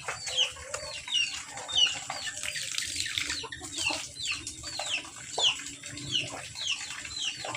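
Chicks peeping: short, high, falling chirps repeated about twice a second.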